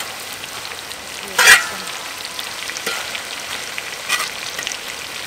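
Grasshoppers frying in oil in a wok: a steady sizzle, with a metal spatula scraping against the wok once loudly about a second and a half in and twice more lightly later.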